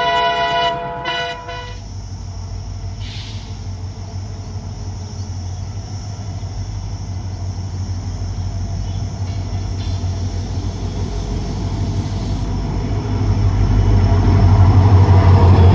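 A held tone with the intro stops about a second and a half in. Then the diesel engine of a WDP4B locomotive drones steadily as it approaches, growing louder and rising sharply near the end as it comes alongside with its train.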